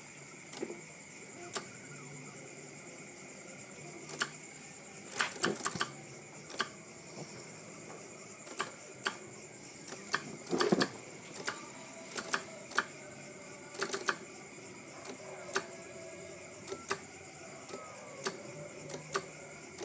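Irregular light clicks and taps from a small DIY polar drawing CNC's pen mechanism, some coming in quick clusters, with a faint thin motor whine at times in the second half.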